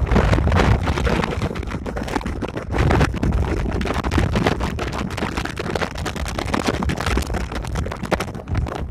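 Wind buffeting the camera's microphone: a loud, uneven rush with a heavy low rumble that never settles.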